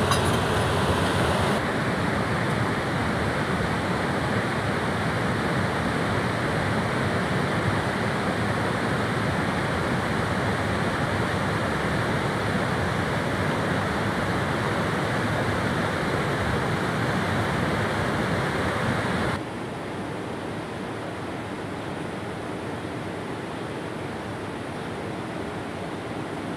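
Rushing white water of river rapids over rocks, a steady noise with no breaks; about two-thirds through it drops abruptly to a quieter, still-steady rush of flowing river water.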